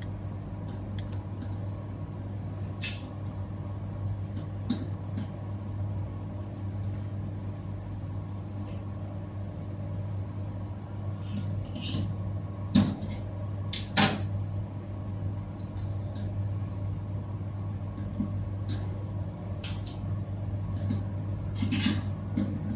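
Light clicks and taps of small tools on an opened hard drive as it is taken apart to inspect its platters, two sharper clicks a little past the middle, over a steady low machine hum.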